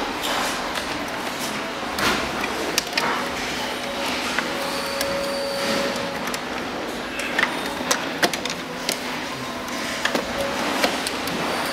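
Scattered light clicks and taps of a screwdriver and hands working on a toy ride-on buggy's plastic gearbox and motor, over a steady hiss.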